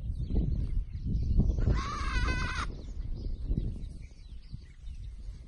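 A young Boer goat bleats once, about two seconds in: one high, wavering call lasting about a second, over a low rumble on the microphone.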